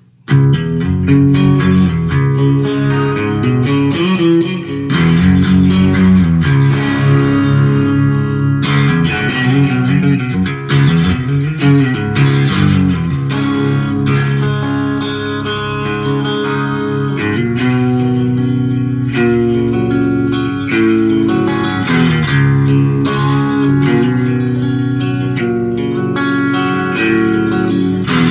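Electric guitar played through a 1970 Dallas-Arbiter Fuzz Face fuzz pedal with TFK BC108C silicon transistors, its fuzz knob set just below the point where it squeals. The playing starts about half a second in and runs on continuously with changing notes and chords.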